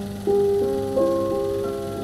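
Background music on a keyboard instrument: a slow melody of held notes, a new note coming in every half second or so.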